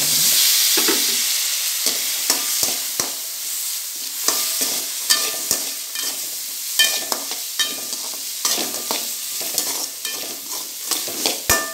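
Vegetables sizzling in oil in a metal kadai, the sizzle swelling at the start as green peas are dropped in. A slotted steel spatula stirs and scrapes them, clinking against the pan many times.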